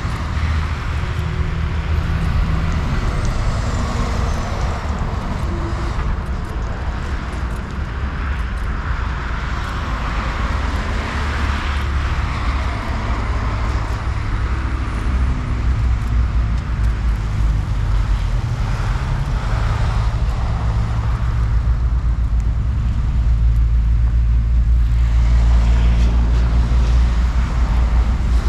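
Road traffic on a city street: cars going by with engine and tyre noise. A deep rumble builds and is loudest in the last few seconds.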